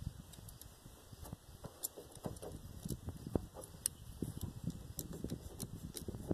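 Light, irregular clicks and clinks of hand tools working at a fuel line as it is being cut.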